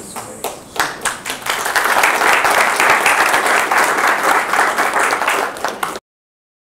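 Audience applauding: scattered claps that build within about two seconds into steady applause, cut off suddenly near the end.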